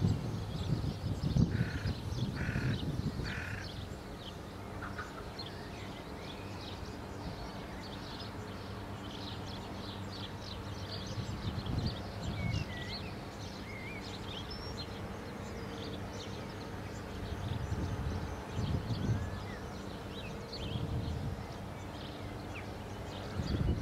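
Outdoor bird ambience: small birds chirping and twittering throughout, with another bird giving three short harsh calls a couple of seconds in. Low rumbles come and go, strongest near the end.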